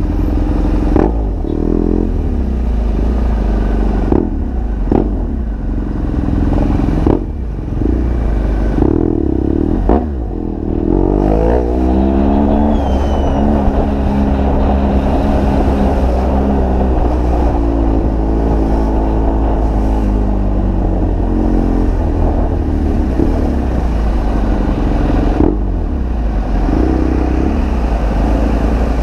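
BMW R1200GS Adventure's flat-twin boxer engine running through an SC Project GP aftermarket exhaust while riding in traffic. The revs rise and fall with the throttle, with a longer pull upward about eleven seconds in.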